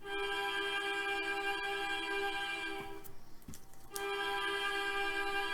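Background music: a sustained, steady chord that drops out for about a second roughly three seconds in, then comes back.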